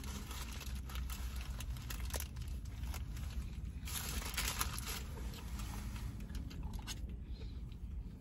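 Paper fast-food sandwich wrapper and bag crinkling and rustling as they are handled, loudest about four seconds in, over a steady low hum.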